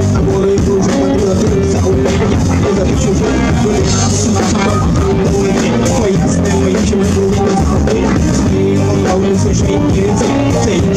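Live rock band playing loudly through a PA: electric guitars and drums keeping a steady beat, with a man singing into a microphone.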